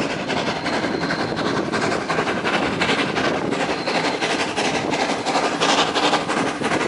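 ÖBB steam locomotive 93.1420, a 2-8-2 tank engine, chuffing under steam as it approaches, its exhaust beats coming quickly and evenly.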